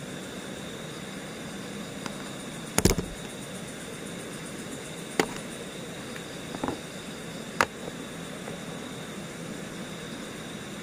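Steady rush of a fast-flowing stream below the bridge, with a thin steady high tone over it. A few sharp knocks cut through: a loud cluster about three seconds in, then single ones around five, six and a half and seven and a half seconds.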